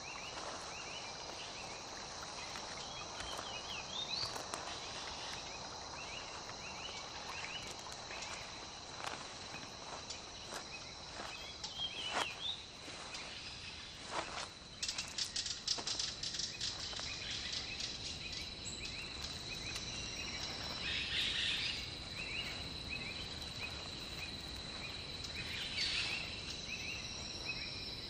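Rainforest ambience: a steady high insect drone, with scattered short bird chirps and calls over it and a quick run of ticks about fifteen seconds in.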